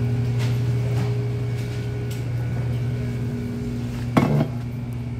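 A steady low hum, with a few faint ticks and one brief clatter of a hard object knocking about four seconds in.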